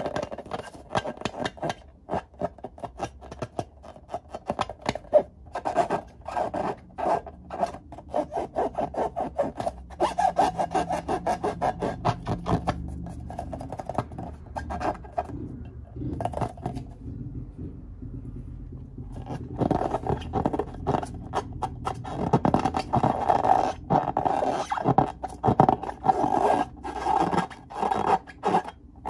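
Hands rubbing and squeezing filled rubber balloons, the rubber squeaking and scraping under the fingers in quick, dense strokes, with a quieter spell a little past the middle.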